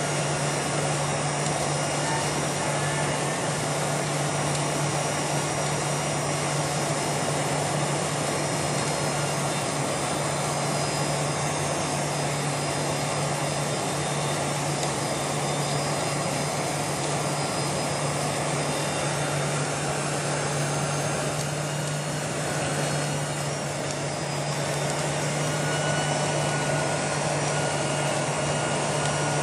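Cabin noise of a Boeing 747-400 on final approach, heard from a window seat over the wing: a steady rush of airflow and its GE CF6-80C2 turbofan engines running, with a steady low hum underneath. The level dips slightly about two-thirds through, then picks up again.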